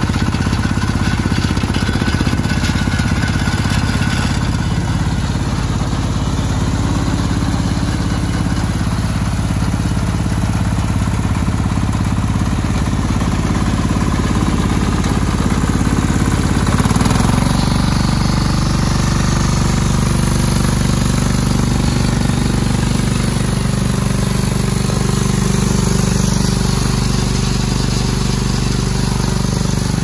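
Ammann AFW 150 G mini asphalt paver's engine running steadily, its low hum growing fuller about halfway through.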